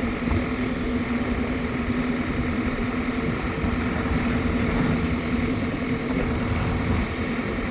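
An engine running steadily: a constant low hum of unchanging pitch over a dense rumble.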